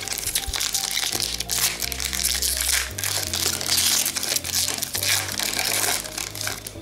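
Crinkling wrapper of a hockey card pack being handled and torn open, over background music.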